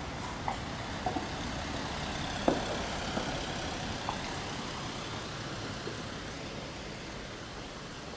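Street traffic noise with a motor vehicle going by, its sound swelling and then slowly fading. A few short sharp taps come at irregular times, the loudest about two and a half seconds in.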